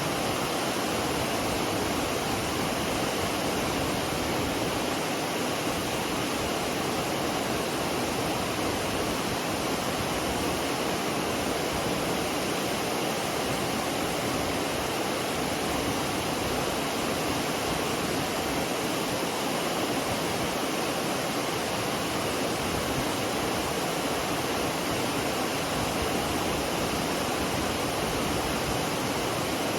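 McCloud Falls on the McCloud River: falling water making a steady, unbroken rush with no pauses or changes.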